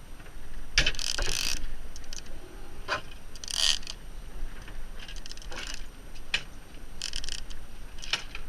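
Big-game trolling reel being worked, its gears and clicking mechanism sounding in short, irregular bursts as line is won back on a heavy fish.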